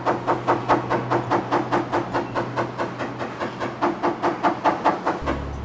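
Rapid, even tapping of a paintless-dent-repair tap-down tool and hammer on a car's fender panel, about six or seven taps a second. The panel is being knocked down around the dent to relax the surrounding metal.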